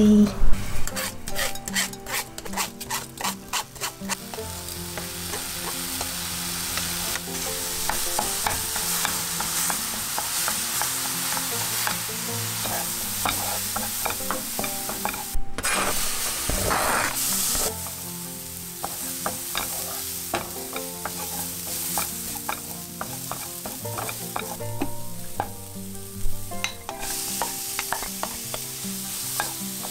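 A quick run of clicks and taps for the first few seconds, then damp quinoa sizzling in a hot frying pan while a wooden spatula stirs and scrapes it, cooking off the moisture.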